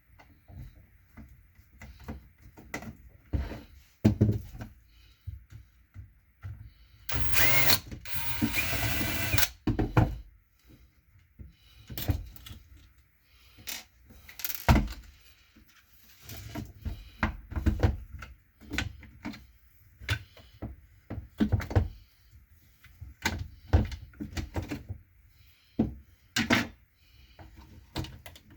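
Irregular mechanical clicks, clacks and ratcheting from hand work on the parts of a DeWalt DCD995 hammer drill, with a denser rasping burst lasting about two seconds some seven seconds in.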